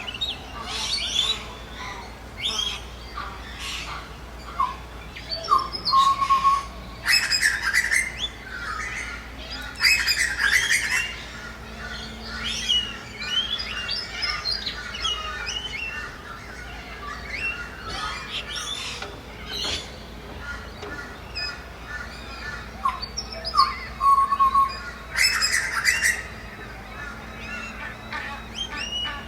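Several birds calling together, with chirps and whistles throughout and loud, noisy calls about 7, 10 and 25 seconds in.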